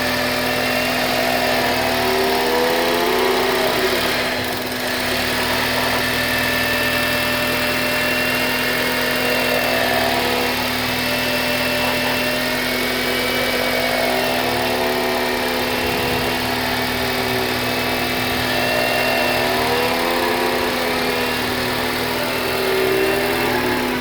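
2004 Honda Odyssey running under throttle: a steady hum with a pitched whine over it that rises and falls in pitch several times. This is the unidentified noise that comes only under throttle once the wheels reach a certain speed, not with engine revs, which points to something turning with the wheels rather than the engine.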